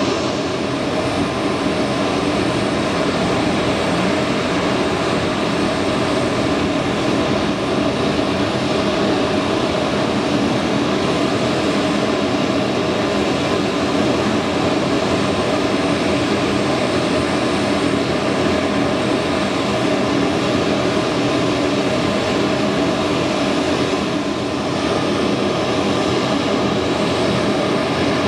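Auxiliary power unit of a parked Bombardier CRJ-200 running steadily, with the main engines not yet started: a constant whine over a steady rush, unchanging in pitch.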